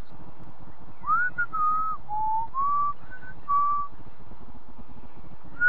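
A person whistling a little tune: about seven clear notes, some short, some held, from about a second in to about four seconds in, then starting up again at the very end.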